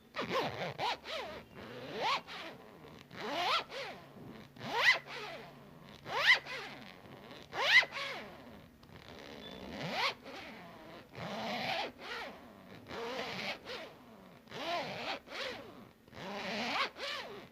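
A series of about a dozen short rasping pulls, each rising in pitch as it goes, repeated at irregular intervals.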